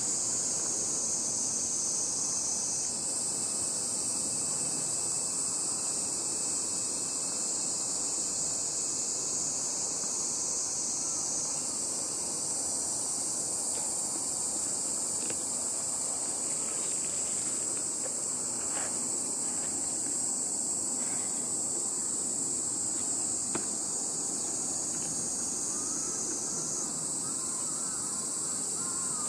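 Steady, high-pitched chorus of insects singing without a break, the loudest sound throughout.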